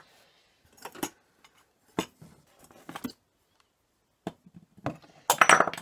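Small pewter cups being handled and set down on a table, knocking and clinking against the table and each other about once a second, with a louder clatter near the end.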